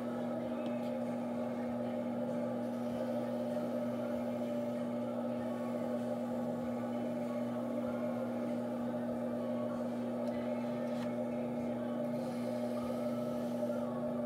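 Electric potter's wheel motor running at a steady speed: a constant, even hum.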